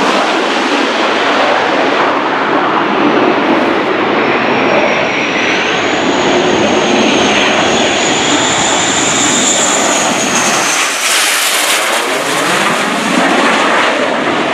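F/A-18 Hornet fighter jet on landing approach with gear down, its twin F404 turbofans loud and steady, with a high whine that rises in pitch as it closes in. The whine drops away about three-quarters through as the jet passes overhead.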